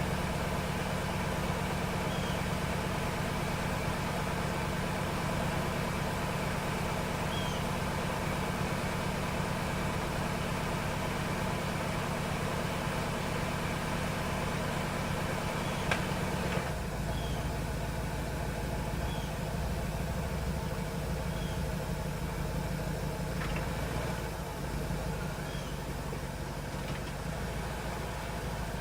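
Cadillac Seville's V8 engine idling steadily. About 16 s in there is a single click, and the idle note then shifts lower, as if under a change of load.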